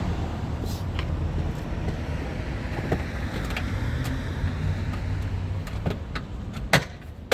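Scattered sharp plastic clicks and knocks from handling a car's tailgate trim panel and its push-in retaining clips, the loudest about three-quarters of the way through, over a steady low hum.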